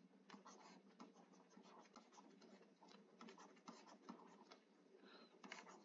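Faint scratching and tapping of a stylus writing by hand on a tablet surface, in many short irregular strokes.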